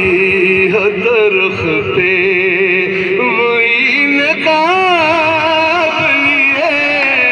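A solo voice sings poetry in a slow, ornamented melody, with long wavering held notes, over a steady low hum.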